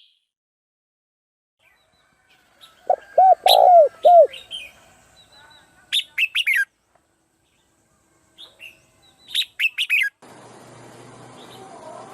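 Birds calling: a quick series of low, arched whistled notes about three seconds in, then short bursts of high chirps around six and nine seconds. A steady hiss begins near the end.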